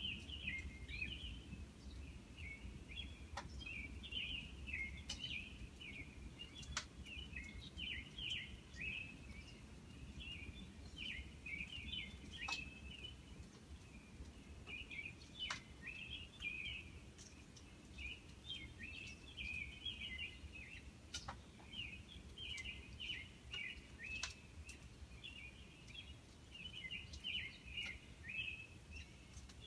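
Outdoor ambience: many small birds chirping and twittering continuously over a low, steady rumble, with a few faint sharp clicks.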